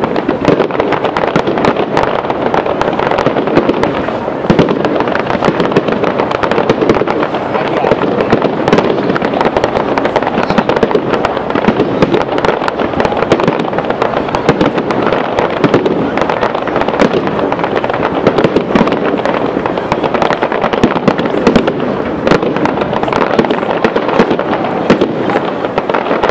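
Fireworks display bursting overhead: a dense, unbroken crackle of many sharp pops a second, with louder bangs now and then.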